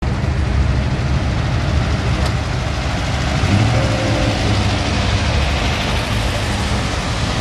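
Low, steady rumble of car engines from classic cars rolling slowly past at walking pace, growing slightly stronger about halfway through as a Batmobile replica passes close by.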